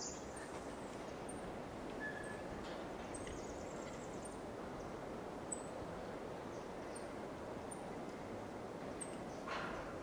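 Outdoor ambience: a steady background hiss with short, high bird chirps at irregular intervals, about once a second.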